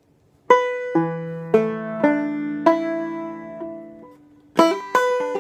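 Five-string resonator banjo (a Deering Deluxe in bEADE tuning): five single notes plucked one at a time and left to ring and fade, then about four and a half seconds in the quick, dense clawhammer picking of the tune begins.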